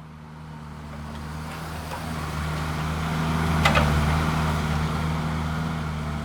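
A large engine running with a steady low hum, building to its loudest about halfway through and then easing off. A short high squeal comes near the middle.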